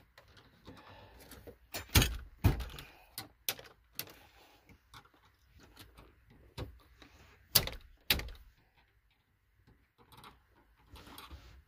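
Sharp plastic knocks and clunks as a Kenwood double-DIN head unit is pushed and pried into the dash with a flathead screwdriver; the unit is not snapping fully into place. The loudest come as two pairs, about two seconds in and near eight seconds, with lighter taps between.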